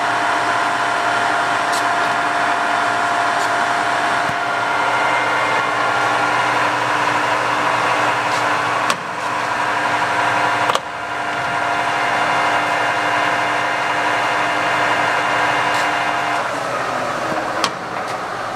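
Kingston HJ-1700 lathe's spindle and headstock gearing running at 950 RPM with an empty chuck: a steady whine of several tones. Two sharp clicks come about nine and eleven seconds in, and the whine fades as the spindle slows near the end.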